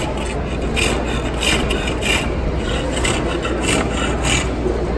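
Wooden molinillo being turned on a traditional hand-worked reciprocating lathe, with the cutting tool scraping wood off the spinning piece. It makes a rasping scrape in repeated short strokes, about one and a half a second.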